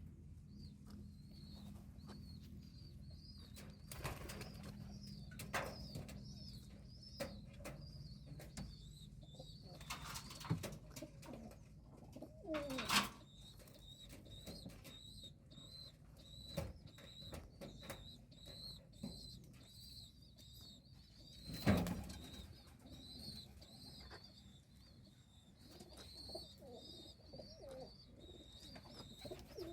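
Pigeon with a breathing problem: a faint high-pitched wheezy squeak repeats about twice a second throughout. There are a few soft knocks, and two louder low falling coos, one about halfway through and one about two-thirds of the way in.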